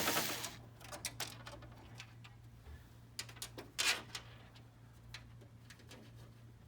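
A power screwdriver's whir stops within the first half second, then come scattered light clicks and knocks of a screw and plastic panel parts being handled, one louder knock about four seconds in.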